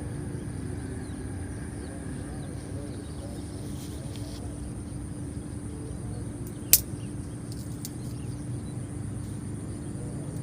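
Outdoor ambience with a steady low rumble and a faint steady high hum, broken by one sharp click about two-thirds of the way through.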